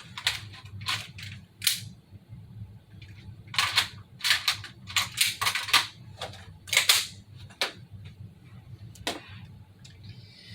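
A run of sharp mechanical clicks and clacks from an unloaded airsoft gun being handled, working the action and reloading between dry-fire shots: a few single clicks, then a quick cluster of them, then two more spaced out.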